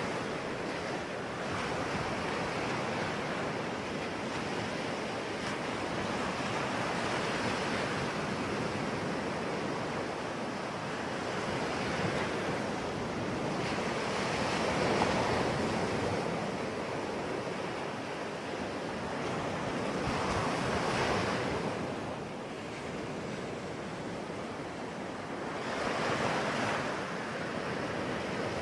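Sea waves breaking on a shore: a continuous wash of surf that swells and fades every five to six seconds, with wind on the microphone.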